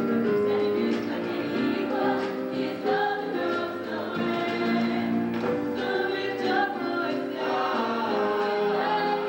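Mixed-voice show choir singing a song together.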